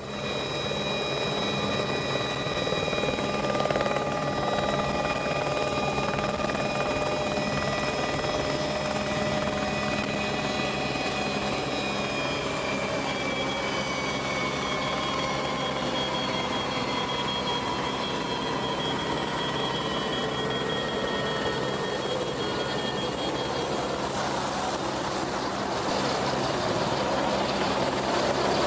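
Small propeller plane's engine droning steadily, its pitch slowly falling through the middle stretch and the noise growing a little louder near the end.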